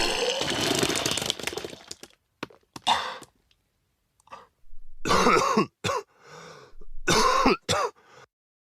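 A person coughing in several bursts: a long, harsh coughing fit at the start, then shorter coughs around the middle and near the end.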